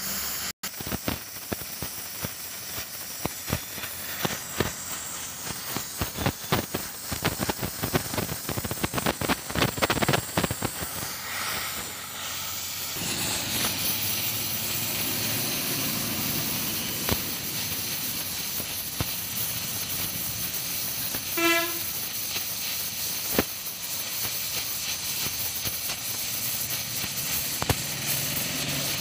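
Gas welding torch flame hissing steadily on a steel pipe, with crackling pops for roughly the first twelve seconds. It then settles into a smoother, louder hiss.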